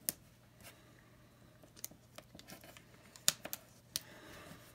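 Faint paper handling as a sticker is pressed onto a planner page: soft rustles with a few sharp little clicks and taps, the loudest about three seconds in.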